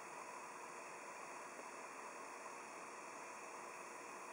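Faint, steady hiss with a thin hum underneath and no distinct events: the background noise inside an ice-fishing shelter.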